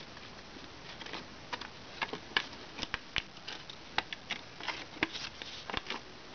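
Map paper rustling and crackling in the hands as the corners of a paper pinwheel are bent in toward the centre, in short irregular crinkles.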